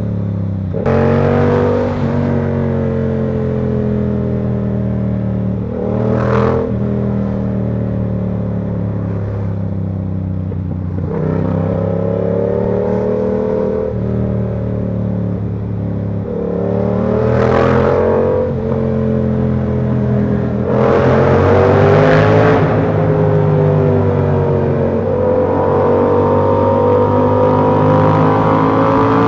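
Yamaha R7's 689 cc parallel-twin engine under way, its pitch rising and falling several times as the throttle and gears change. Short rushes of noise come through about five times.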